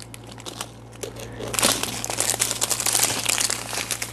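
Clear plastic zip-top bag full of small packets of diamond painting drills crinkling as it is handled and turned over. The crinkling grows louder about a second and a half in and fades near the end.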